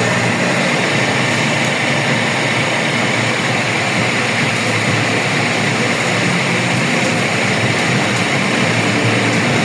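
A machine running steadily, a whirring hum with a hiss over it.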